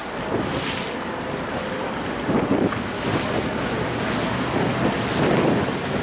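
Steady rush of wind on the microphone and water along the hull of a passenger ferry under way at speed, with the boat's engine running underneath.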